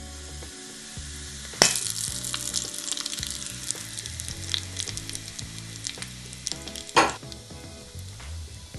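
Hot olive oil hitting chili powder in a ceramic ramekin: a sudden burst of sizzling and crackling about a second and a half in, slowly dying down, with one sharp louder crackle near the end.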